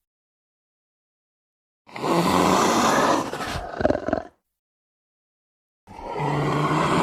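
Smilodon (sabre-toothed cat) roar sound effects: a loud roar of about two and a half seconds that breaks into short grunts at its end, dead silence, then a second roar starting near the end.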